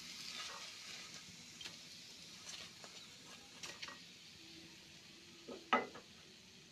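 Faint kitchen sounds: a soft hiss of hot frying oil that fades over the first couple of seconds, with a few light clicks and one sharper tap a little before the end, as of utensils being handled.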